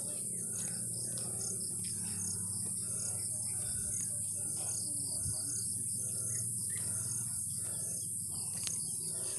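Insects shrilling in a steady, high continuous buzz, with short chirps repeating a few times a second over it.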